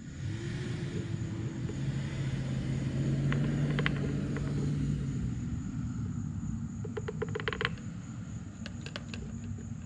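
Low engine hum of a vehicle going by, which swells after the start and fades out about five seconds in. A few light clicks come later.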